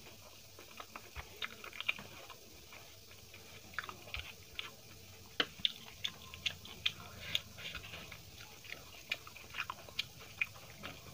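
Close-miked chewing and mouth sounds from eating by hand: short, irregular wet clicks and smacks, busier in the second half.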